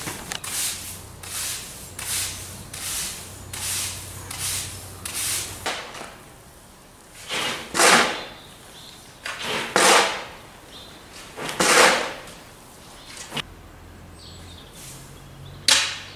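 Stiff broom sweeping a concrete floor in quick, regular strokes, about one every second, followed by three longer, louder scrapes as the spilled silage and straw are cleared up.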